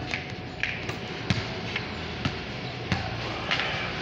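Bare feet and flip-flops slapping and stamping on a concrete floor, giving irregular sharp thuds about every half second to a second.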